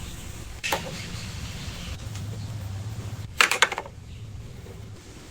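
A sharp knock a little under a second in, then a quick run of four or five knocks about three and a half seconds in, over a steady low hum.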